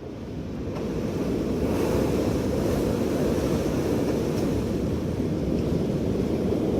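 Strong winter wind blowing, swelling over the first second or so into a steady, loud, low rush.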